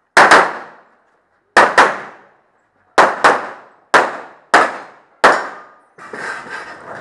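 Pistol fire at steel plate targets: about nine shots, in quick pairs and singles, with short gaps between strings, and the plates clanging as they are hit.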